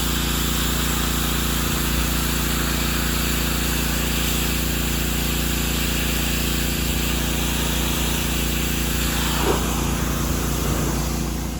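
Pressure washer running steadily, its motor and pump drone under the constant hiss of the water spray.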